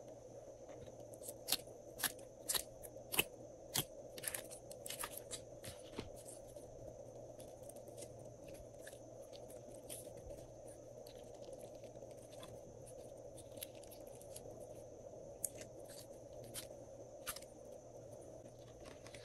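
Glossy slime peeling out of a plastic tray and pouring into a glass dish. A run of sharp, sticky clicks and pops comes over the first few seconds, then scattered clicks over a steady faint hum.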